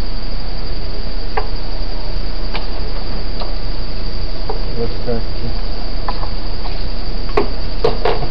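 Crickets chirping steadily in a continuous high-pitched trill, with a few light clicks and knocks of handling, the clearest near the end.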